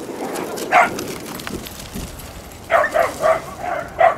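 A dog barking: one bark about a second in, then a quick run of about six barks near the end.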